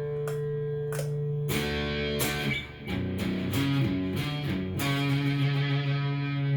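Cort S series electric guitar played through a Fender amp: a held chord rings, then picked and strummed notes change chords and ring out again.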